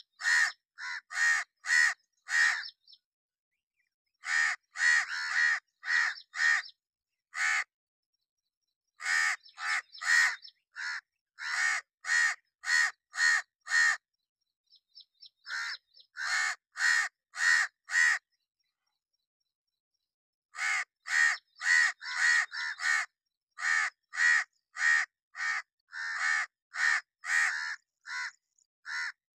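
House crow cawing in quick runs of short caws, about two to three a second, with pauses of a second or two between runs.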